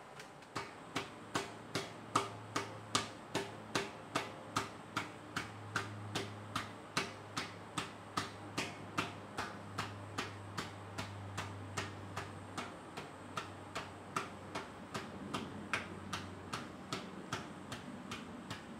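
Wooden paddle beating the wall of a large unfired clay onggi jar, an even run of dull knocks at about two and a half a second, as the potter compacts and shapes the coil-built wall.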